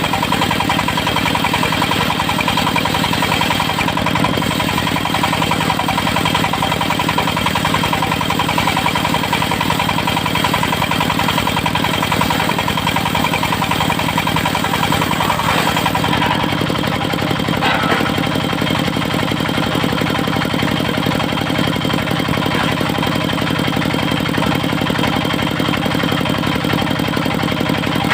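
The engine of a portable circular sawmill running steadily with an even firing beat. A high hiss over it drops away about sixteen seconds in.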